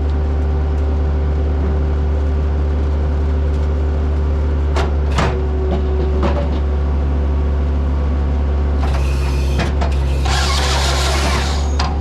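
Bobcat T190 skid steer's diesel engine running steadily, powering the hydraulic Halverson 140B firewood processor. A few sharp knocks come around the middle, and in the last three seconds there are two spells of loud harsh hissing.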